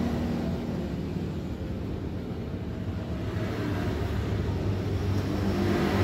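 A motor vehicle engine running, a low steady hum that grows louder toward the end.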